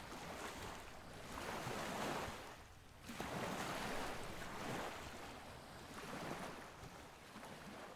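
Rushing water like waves washing in, a noise that swells and ebbs every couple of seconds.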